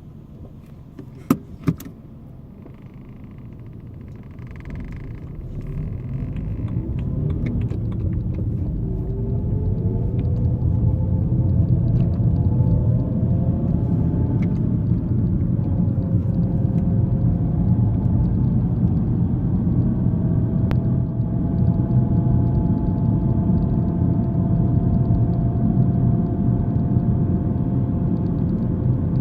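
BMW E90 320i accelerating, its road and drivetrain rumble growing louder while a whine of several close tones climbs in pitch, then levels off as speed steadies. The owner cannot tell whether the whine comes from the rear differential or the gearbox. Two sharp clicks sound about a second in.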